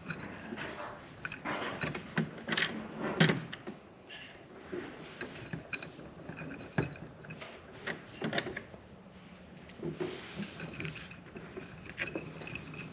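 Small steel bolts, lock washers and T-nuts clinking and scraping against a steel L-bracket as they are fitted and threaded in by hand, with irregular clicks and light knocks of the bracket being handled on a tabletop.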